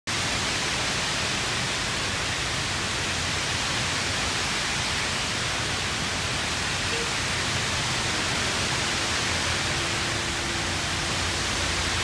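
Steady rush of water from a wide man-made waterfall cascading down a stone face.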